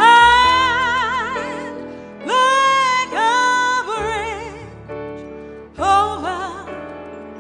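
Slow ballad: a singer holds long notes with vibrato, new ones sliding up into pitch about two seconds and six seconds in, over sustained accompaniment and bass.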